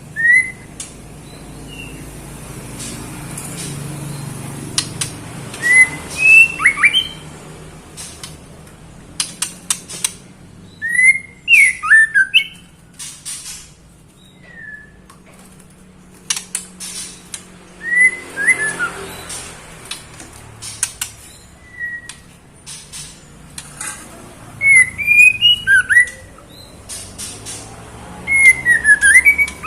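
Female white-rumped shama calling: short, clear whistled notes that slide up and down, in groups of two to four every few seconds, with bursts of short sharp clicks between them. It is a female in breeding condition calling for a male.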